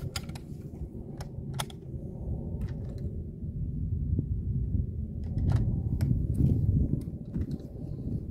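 Handling of a spring-piston air rifle as it is lifted and settled onto a shooting rest: scattered light clicks and knocks over a low rumble.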